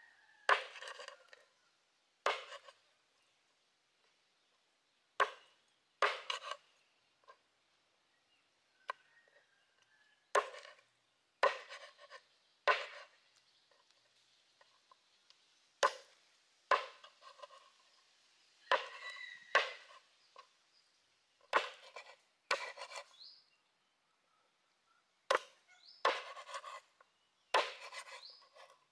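Large kitchen knife chopping raw frogs on a wooden cutting board: about twenty sharp chops, irregularly spaced one every second or two, with soft scraping and handling of the pieces between strokes.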